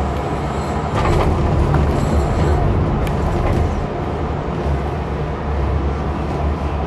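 Steady low rumble and wind noise inside a Von Roll skyride gondola cabin travelling along its cable, with a few light clicks and rattles between about one and three seconds in.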